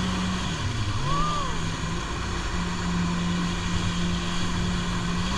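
Jet ski engine running at speed over wind and water noise; its pitch dips briefly about half a second in, then settles back to a steady drone.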